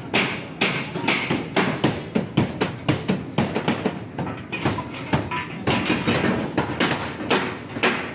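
Construction-site clatter from work on steel rebar and plywood formwork: quick, irregular metal clanks and knocks, two or three a second.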